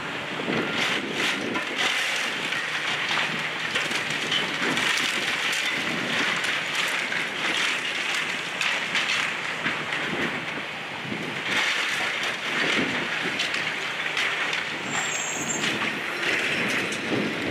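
Excavator's demolition grapple tearing into a brick building: continuous crunching, cracking and clattering of brick and wood debris breaking away and falling, in repeated surges.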